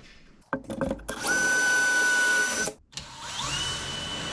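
Power drill running twice: after a few clicks, a steady high whine for about a second and a half that cuts off suddenly. Then a second run whose pitch rises and then holds steady.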